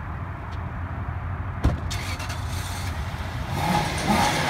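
A car door shuts with a single knock, then the sedan's engine runs and grows louder near the end as it revs.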